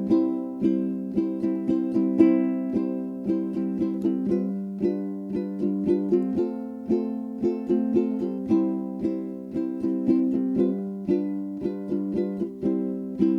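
Background music: a light plucked-string tune with a steady beat.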